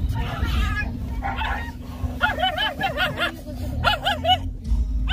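Dogs yelping in quick runs of short, high cries: about six a little after two seconds in, then three more near the four-second mark. Under them runs the steady low hum of the car.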